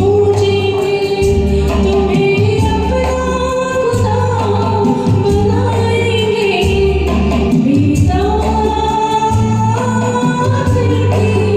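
A woman singing a Hindi film song over a karaoke backing track, holding long notes above a steady repeating bass beat.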